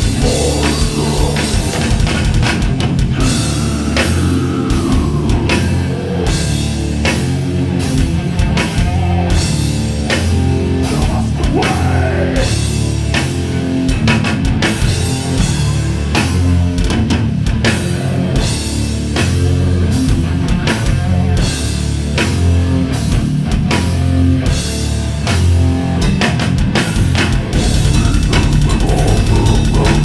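Death metal band playing live: heavily distorted electric guitars and a guitar-synth bass over fast, dense drum-kit playing, with a few sliding guitar notes. Near the end the playing gets denser and a little louder.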